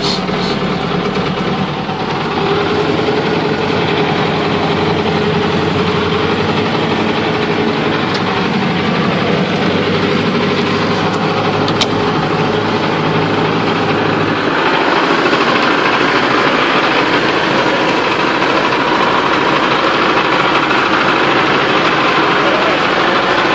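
Heavy 6x6 off-road truck engine running steadily. About two-thirds of the way in the sound changes, the low rumble dropping away and a brighter, noisier engine note taking over.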